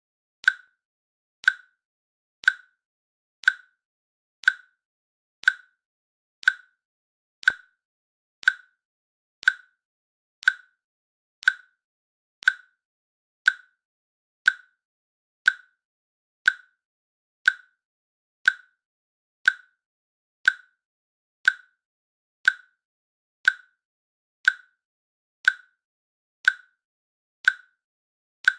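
Timer click sound repeating once a second, a short sharp tick with near silence between each, marking the countdown seconds.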